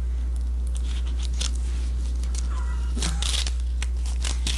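Steady low hum, with scattered small clicks and a short rustle about three seconds in as a small card or paper is handled.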